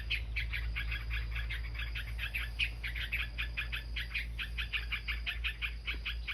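A small bird giving rapid, repeated alarm calls, about five a second: scolding to drive a green snake away from its nest.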